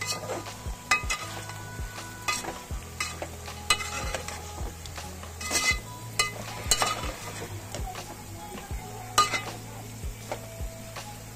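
Chunks of meat being stirred with a spatula in a metal pot, the spatula scraping and knocking irregularly against the pot while the meat sizzles, over a steady low hum.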